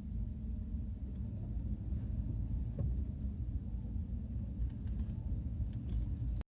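Steady low rumble of a car on the move, heard from inside the cabin: road and engine noise while driving.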